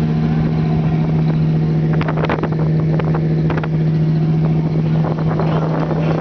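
1977 Oldsmobile Cutlass Supreme's engine idling with a steady low hum from the exhaust at the rear of the car. Some short clicks come about two to three and a half seconds in.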